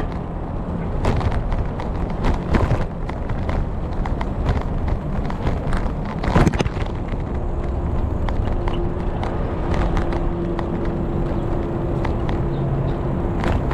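Rumble of wind and road from a camera rigidly mounted on a moving bike, with the mount and the plastic housing rattling and knocking over bumps, one sharp knock about halfway through. A faint steady whine comes in just after halfway and holds until near the end.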